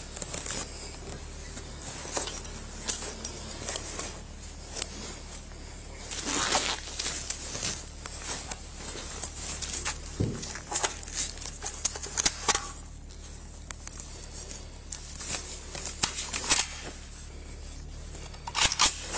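Rustling, scraping and irregular clicks and knocks of a body-worn camera rubbing against the wearer's uniform as he moves about, over a steady low hum.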